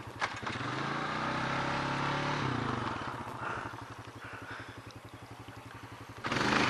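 Small single-rider vehicle engine running, its pitch dropping over the first couple of seconds and then holding steady at a lower speed. A loud rushing surge comes in near the end.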